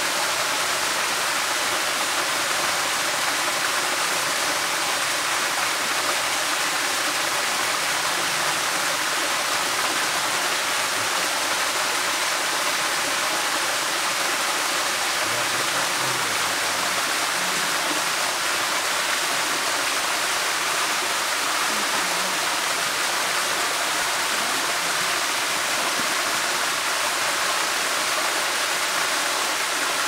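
Small waterfall splashing over a rock ledge into a pool below: a steady hiss of falling water.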